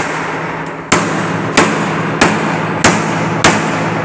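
Hammer tapping a steel profile strip into a wooden door, with sharp, evenly spaced strikes about one and a half per second starting about a second in, over a steady background hum.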